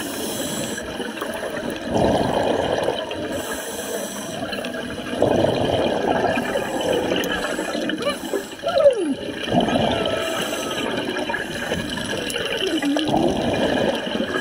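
Water splashing and sloshing in uneven surges. A few short sliding pitched sounds sit on top: one falls in pitch about two thirds of the way through, and another dips and rises near the end.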